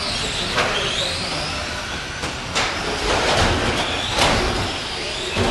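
Tamiya Euro Truck radio-controlled race trucks racing: the high whine of their electric motors rises and falls as they speed up and slow down, with several short bursts of noise from the trucks on the track.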